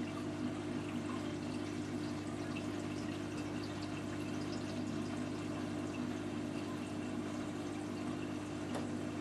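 Reef aquarium's circulating water trickling and splashing steadily, with a steady low hum underneath.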